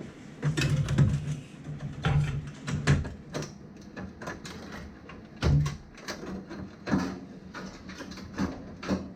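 Irregular knocks and clatters, about a dozen, the loudest about a second in and again about five and a half seconds in, some with a short low hum under them.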